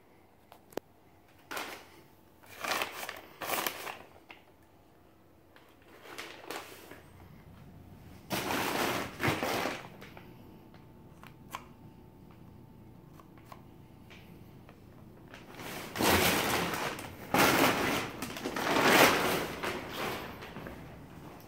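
Plastic sheeting rustling and crinkling, with crunching steps on a gritty floor, in irregular bursts and a few sharp single clicks.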